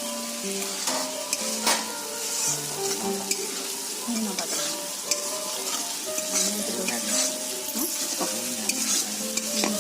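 Food sizzling steadily in hot oil in a cooking pan, with scattered clicks and scrapes of stirring. An instrumental melody plays underneath.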